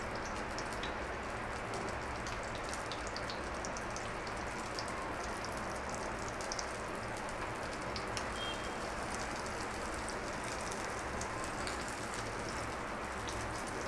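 Egg-coated mutton shami kababs sizzling steadily in a little hot oil on a nonstick pan, with scattered small crackles.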